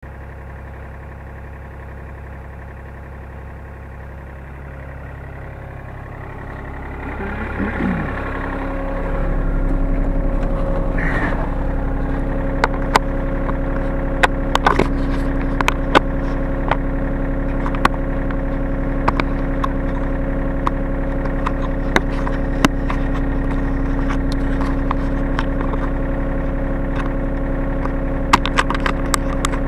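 Hyundai R35Z-9A mini excavator's diesel engine heard from inside the cab, running low at first and then rising a few seconds in to a steady, higher working speed. Sharp clicks and knocks come at irregular intervals over the engine in the second half.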